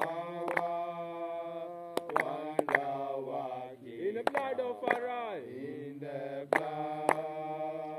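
Rastafari worship chant: voices singing a slow hymn-like chant in long held notes that bend between phrases, over sharp percussive beats that often come in pairs about half a second apart.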